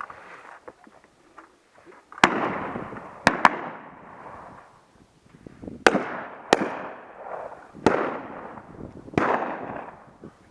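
Side-by-side shotguns fired at driven partridges: seven shots in quick succession, some close pairs, each followed by a rolling echo.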